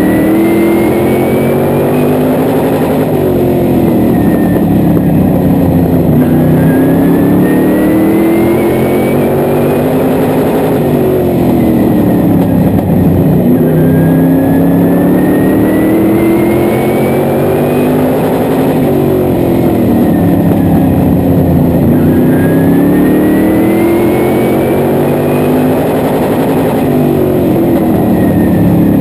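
Modified race car's engine heard from inside the cockpit, revving up on each straight and dropping off into each turn, the cycle repeating about every four seconds. A thin high whine climbs along with each acceleration.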